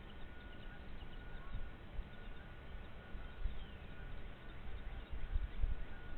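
Uneven low rumble of wind on the microphone, gusting louder near the end, with faint short bird chirps and calls in the background.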